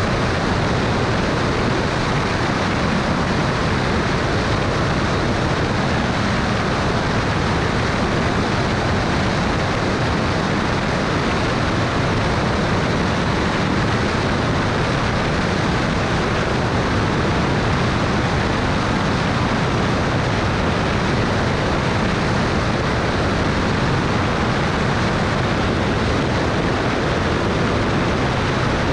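Cessna Turbo Centurion in flight: its turbocharged six-cylinder engine and propeller running steadily, blended with a constant rush of wind, with no change in pitch or level.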